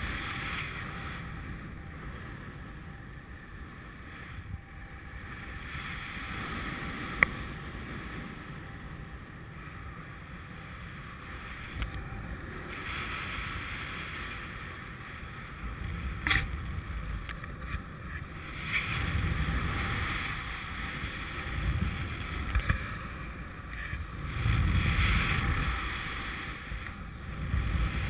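Wind noise from airflow rushing over a helmet-mounted action camera in paraglider flight: a steady rush that swells in gusts, stronger in the second half, with two sharp clicks.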